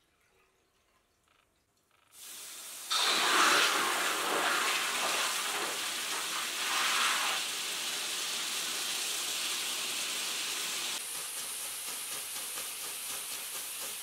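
Stick (arc) welding a steel plate onto a square steel tube, a steady hissing noise that starts about two seconds in and grows louder a second later.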